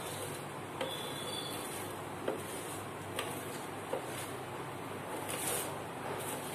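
Flat metal spatula scraping and stirring whole spices as they dry-roast in a wide metal pan, with about four light clicks of the spatula against the pan over a steady background hiss.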